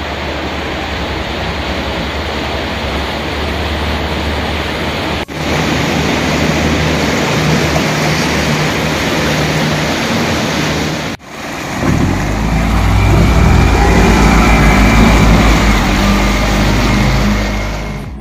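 A houseboat under way: its petrol outboard motor drones steadily under wind on the microphone and rushing water from the wake. The sound breaks off briefly twice, about five and eleven seconds in, and is louder with a heavier low rumble in the last six seconds.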